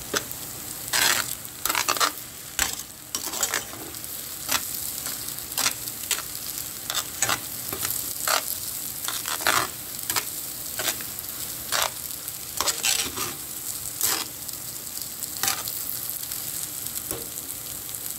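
Bihon rice-stick noodles sizzling in a hot pot while kitchen tongs toss and stir them, the tongs scraping and knocking against the pot's wire strainer basket in sharp strokes roughly once a second over a steady sizzle.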